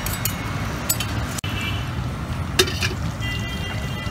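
Metal spatula scraping and clinking on a flat iron griddle (tawa) as the cook works the oil. There are several short metallic clinks, the loudest about two and a half seconds in, over a steady low rumble.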